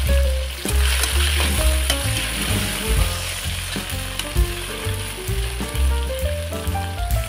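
Small river fish sizzling as they fry in hot oil in a wok, a steady crackling hiss, under background music with a strong bass line.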